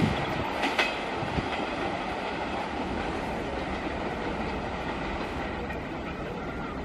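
Passenger train wheels clattering over the rails, a steady rumble of coaches rolling past on the adjacent track, with a few sharp clacks in the first second or so.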